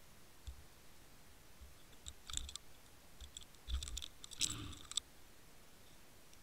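Irregular sharp clicks and dull knocks picked up on an underwater camera's housing, a small cluster about two seconds in and a denser run from about three and a half to five seconds in, over a faint steady hiss.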